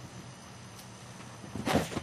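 A cat rushing up to the camera: a brief, loud scuffle of paws and fur right at the microphone near the end.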